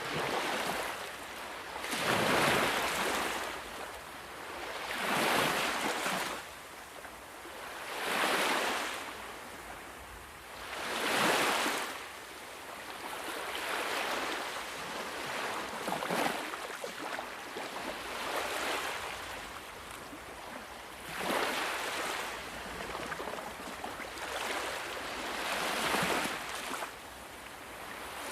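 Ocean waves breaking on a shore. Each surge of surf swells and fades, about one every three seconds, over a constant wash of water.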